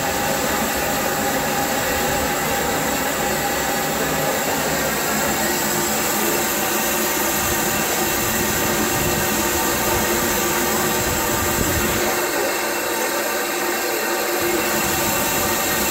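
Small steam locomotive standing with a loud, steady hiss of steam.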